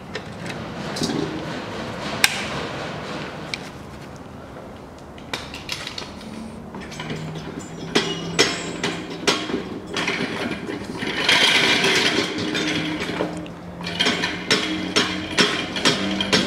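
Socket wrench with a 17 mm head loosening the engine oil drain plug on the oil pan: a run of metal clicks and clinks, sparse at first and coming thick and regular in the last few seconds. A steady low hum joins about six seconds in.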